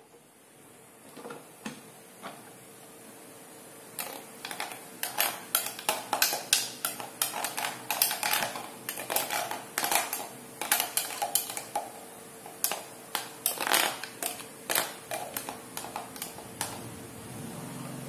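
Hard plastic parts of a Bolde Super Processor's citrus-juicer attachment clicking and knocking together as the reamer cone and lid are worked loose and lifted off the juice bowl. The clicks come thick and fast from about four seconds in and thin out near the end.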